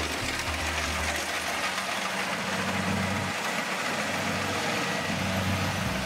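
Kubota rice combine harvester running steadily while cutting rice: engine and machinery noise with a steady hum and a thin high whine over it.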